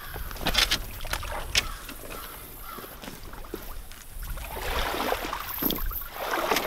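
Floating turtle trap being hauled through shallow pond water by its rope, the water sloshing and splashing around it, loudest in the last couple of seconds. A few sharp clicks come in the first two seconds.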